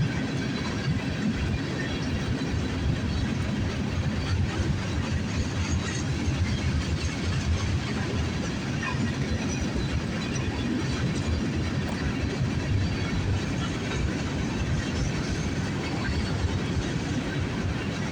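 CSX freight train rolling past, a steady rumble of wheels on the rails that keeps going without let-up.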